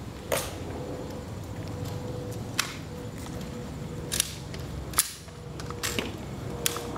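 Sharp clicks and slaps of a rifle being handled during a ceremonial rifle inspection by honor guard soldiers: six crisp strikes at uneven intervals, the loudest about five seconds in.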